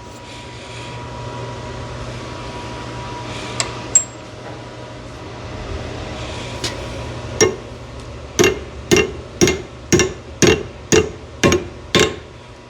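Hammer tapping a factory-size bushing into the lower hinge hole of a 1968 Firebird door hinge: a few scattered knocks, then from about halfway a steady run of about ten strikes, roughly two a second, each with a short metallic ring. The bushing goes in easily.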